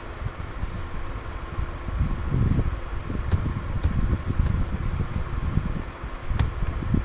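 Computer keyboard keys clicking a few times as a short command is typed, over a steady low rumble of background fan-like noise.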